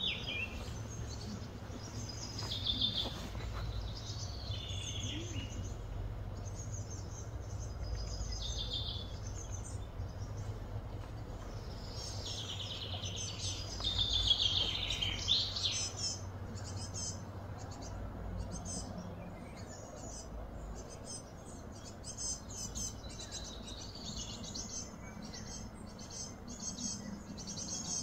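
Birds chirping and calling on and off, loudest about halfway through with a run of falling calls, over a low steady rumble.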